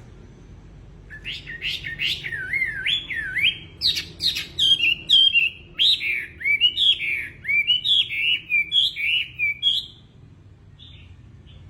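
A wambi songbird singing an energetic, rapid run of swooping whistled notes that rise and fall, from about a second in until about ten seconds, then a couple of faint notes near the end.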